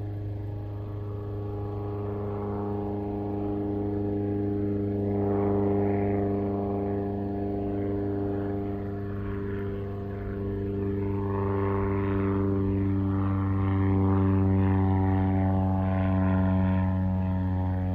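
Beechcraft T-6 Texan II turboprop trainers taxiing: the Pratt & Whitney PT6A turboprop engines and propellers give a steady droning hum, swelling louder and easing again a few times as the aircraft move.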